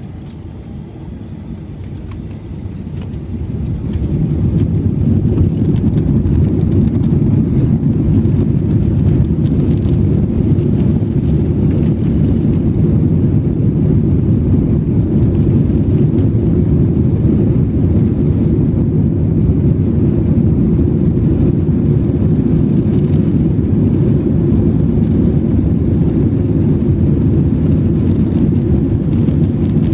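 Airbus A321-200 jet engines heard from inside the cabin, building up to takeoff thrust over the first few seconds, then running steadily at full power with a loud, even low rumble.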